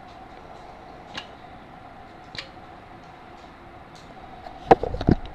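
A faint steady hum with a few light clicks spaced about a second apart, then a quick cluster of louder knocks near the end.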